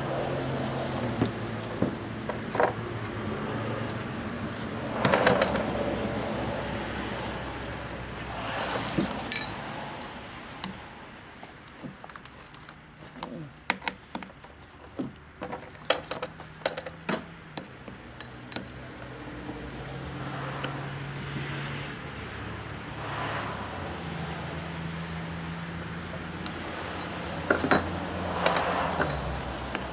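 Scattered metal clinks, taps and knocks of hand tools working on a pole saw as it is taken apart for cleaning, with a quick run of clicks about halfway through, over a low steady hum.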